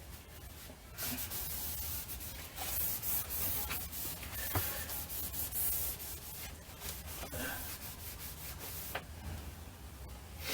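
Uneven rubbing and wiping on a refrigerator's rubber door seal while petroleum jelly is worked into it, with a few light clicks.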